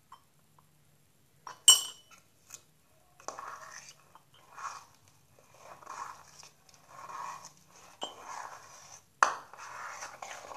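A utensil stirring and scraping a sticky flour slime mixture in a bowl, in regular strokes about once a second, with a sharp clink against the bowl near the start and again near the end.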